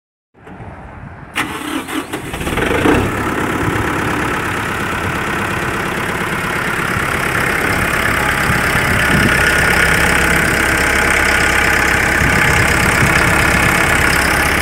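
Kubota M108S tractor's diesel engine being started: it catches after about a second and a half with an uneven burst of sound, then settles into a steady idle.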